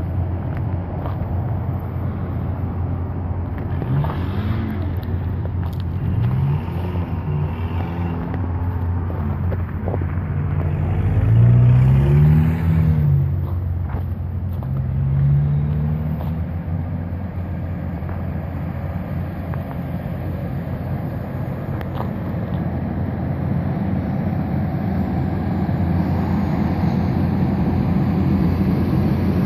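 A vehicle engine running steadily with a low hum. A few short rising-and-falling tones come and go in the middle, loudest about eleven to thirteen seconds in.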